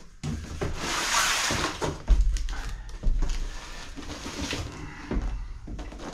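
Cardboard boxes being unpacked: a loud scraping rustle as an inner carton is worked out of its outer box, then several dull thuds and softer rustling as the boxes are lifted and set down on the floor.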